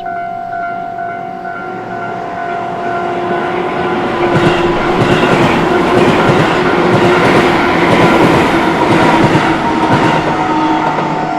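Electric train on the Tobu Isezaki Line approaching and passing a level crossing, its wheels clattering over the rail joints, loudest in the middle and easing off near the end. A level-crossing warning bell rings steadily throughout.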